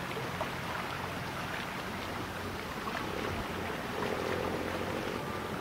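A boat engine running with a steady low hum, over a constant wash of water and wind noise.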